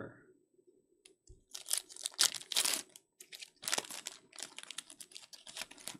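Silver foil wrapper of a 2023 Topps Finest Flashback baseball card pack being torn open and crinkled by hand. The sharp, irregular crackles start about a second and a half in and stop near the end.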